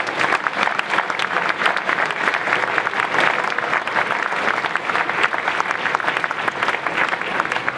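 Large seated audience of students clapping, a dense, steady applause.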